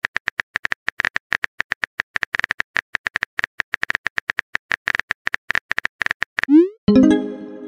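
Synthesized beep sound effects: a rapid, uneven run of short high beeps, several a second. About six and a half seconds in, a quick rising swoop, then a bright electronic chord that fades.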